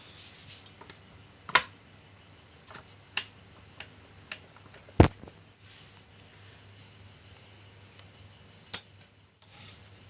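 Metal tools and small parts clinking and knocking while a sewing machine's clutch motor is put back together, with about four sharp clinks and a heavier knock about halfway through.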